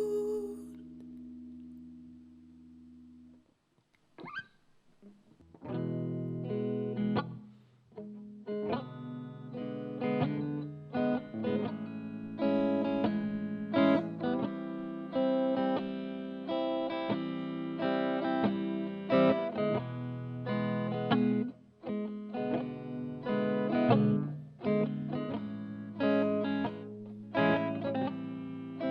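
A held chord fades out over the first few seconds, then after a short pause a guitar starts playing the next song's intro, plucked chords repeated over a steady bass note.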